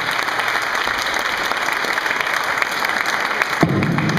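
Audience clapping and applauding as a live band's song ends. A man's voice comes in briefly near the end.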